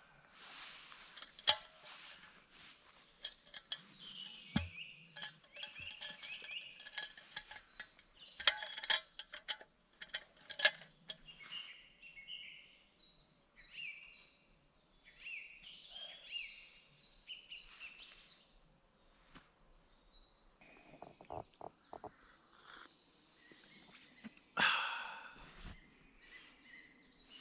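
Small birds singing in the surrounding forest, repeated chirping phrases on and off, with scattered light clicks and clinks as a thermos flask and its metal cup are handled. A short louder burst of noise comes near the end.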